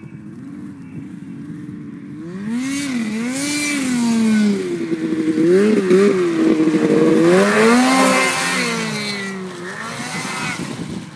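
Turbocharged Ski-Doo Summit 800 snowmobile's two-stroke engine, revving up and down repeatedly as the sled rides in close. It is loudest in the middle and fades as the sled rides away near the end.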